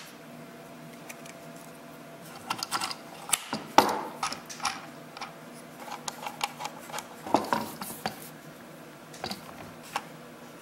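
Small steel hardware handled and threaded on by hand: a threaded rod, coupler nut, jam nuts and washers clicking and clinking against each other and the wooden jig in irregular taps, busiest through the middle of the stretch.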